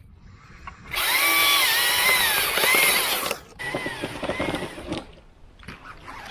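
Lowering rope running fast through a Port-a-Wrap friction device as a cut oak section is let down, a loud whirring rush with a wavering squeal. It runs for about two seconds, pauses briefly, then runs again for over a second.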